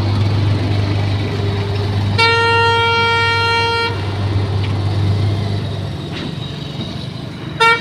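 Combine harvester's diesel engine running as the machine pulls away, a steady low hum that eases off about six seconds in. A vehicle horn sounds one long blast of nearly two seconds a couple of seconds in, and a short toot just before the end.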